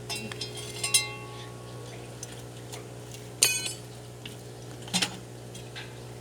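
Metal parts clinking and knocking, with three sharp ringing clinks about a second, three and a half seconds and five seconds in, over a steady low hum.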